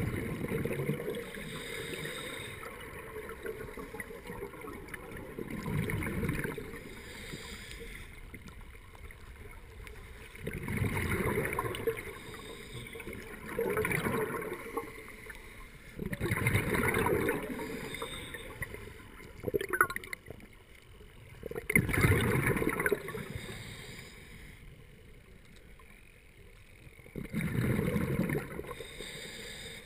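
Scuba diver's breathing underwater: each exhalation through the regulator sends out a rush of bubbles lasting a second or so, about every five seconds, with a quieter hiss between breaths.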